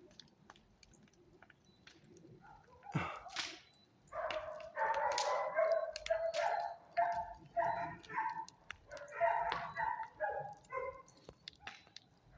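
A dog barking and yelping over and over in quick runs, after a single sharp call about three seconds in.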